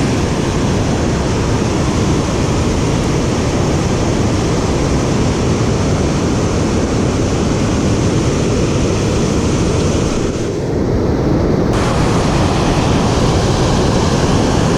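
Steady loud rush of water pouring through a dam spillway, a constant even roar with no pauses. The top end turns briefly duller about ten and a half seconds in.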